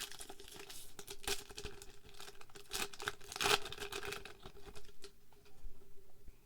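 Foil wrapper of a Japanese Pokémon card booster pack being torn open and crinkled: a run of sharp rips and crackles over the first four seconds or so, loudest about three and a half seconds in, then a few fainter rustles.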